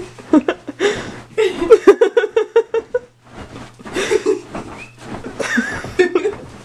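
Young women laughing, with a quick run of 'ha-ha-ha' bursts about a second and a half in.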